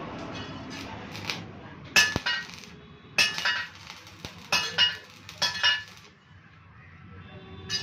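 Stick arc welding on a steel square-tube window grill: a string of sharp metallic clinks and short crackling strikes as the electrode is struck and tacked against the frame, the tubing ringing at the same pitch each time. It goes quieter after about six seconds.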